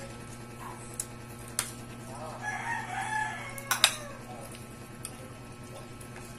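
A rooster crowing once, about a second long, starting about two and a half seconds in. A few sharp clicks sound around it, the loudest just after the crow.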